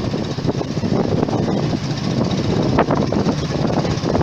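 Motorbike engine running while riding along a dirt street, heard from on the bike with wind on the microphone and a few sharp knocks about three seconds in.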